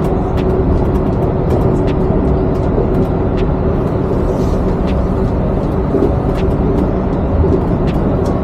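Cabin noise of a Yurikamome rubber-tyred automated transit train running along its elevated guideway: a steady rumble with a held motor tone and light ticks every half second or so.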